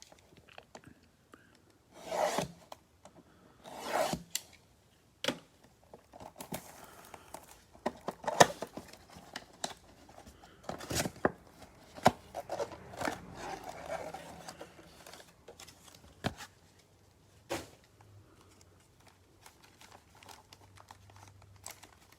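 Trading card packaging being torn open and crinkled by hand: two sharp tears about two and four seconds in, then a long stretch of rustling and crinkling of wrappers with scattered taps.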